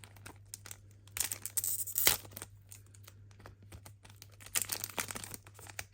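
Trading-card pack wrapper being torn open and crinkled by hand, in crackly bursts about a second in and again past four seconds, over a steady low hum.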